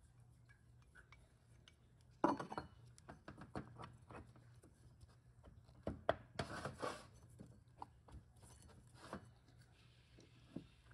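Aluminium transmission clutch drums and pistons clinking and knocking against each other and the steel workbench as they are handled. There is a sharp knock about two seconds in and a cluster of clinks around six to seven seconds in.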